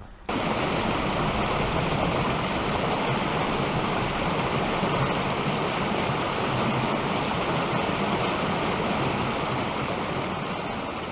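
Creek water rushing through small rapids and cascades over rock ledges, a steady, loud rush that starts abruptly and eases off slightly near the end.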